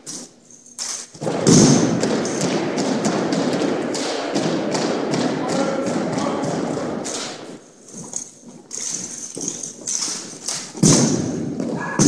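An armed drill team's rifles thudding and tapping as they are slapped between hands and struck against a hardwood gym floor, mixed with boot stamps, in a run of rapid, echoing impacts with loud strikes about a second in and near the end.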